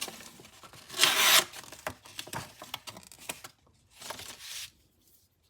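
Leatherman OHT multitool being handled: a short, loud scrape about a second in, scattered light clicks, and a fainter scrape around four seconds.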